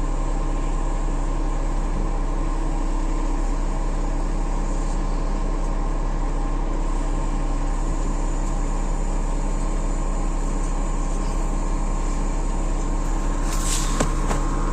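An engine running steadily at a constant speed, with a couple of short metallic knocks near the end.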